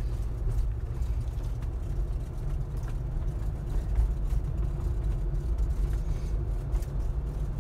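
Jeep engine running steadily with low road and tyre rumble, heard from inside the cabin while cruising down a mountain road held in manual fourth gear.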